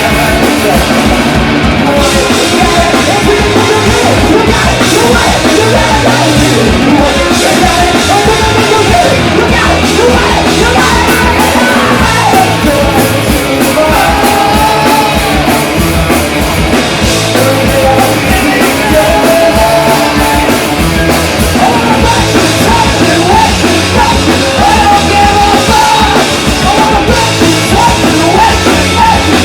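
Punk rock band playing live, loud, with drums and shouted vocals over the band.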